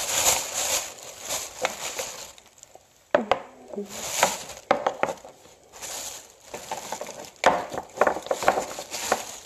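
Rustling and clattering of objects being rummaged through and handled close to the microphone, with several sharp clicks and knocks.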